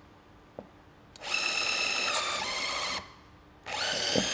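Electric motor of a Böllhoff E-PSG installation tool whining as it drives a HELICOIL coil thread insert into a tapped hole. It runs twice, each time for about a second and a half, and the second run starts with a rising whine.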